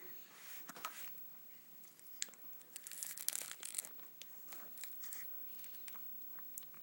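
Rustling and crinkling, with scattered small clicks, loudest in a dense stretch about three to four seconds in.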